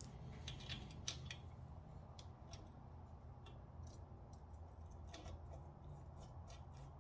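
Faint, scattered clicks and small taps of metal parts being handled and fitted together as a Stanley Bailey No. 7 hand plane is reassembled, over a low steady hum.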